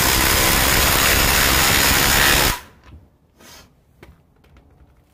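Two cordless impact drivers, a Milwaukee M18 Gen 3 and a Ryobi PBLID02 brushless, hammering together as they drive lag bolts into stacked lumber. The rapid impacting cuts off about two and a half seconds in, followed by a few faint clicks.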